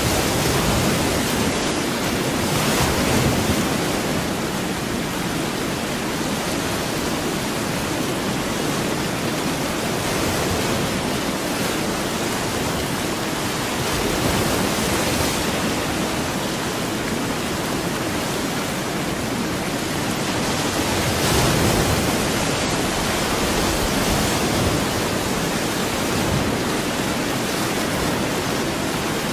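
Steady rushing noise, the masking track of a subliminal audio, swelling slightly now and then.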